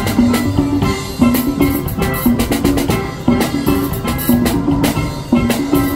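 Steel band playing: steelpans strike out a melodic phrase that repeats about once a second, over a drum-kit beat.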